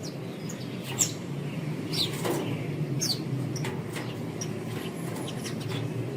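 Small songbirds giving short, sharp chirps about once a second, some sliding down in pitch, over a steady low hum.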